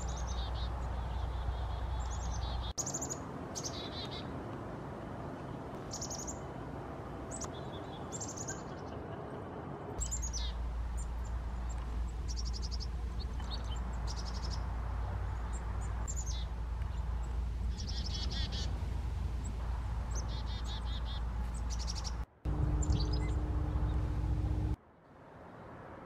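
Black-capped chickadees calling again and again: short, high, falling notes, some with a buzzy tail, over a steady low background rumble. Near the end a louder low hum with a steady tone takes over for about two seconds.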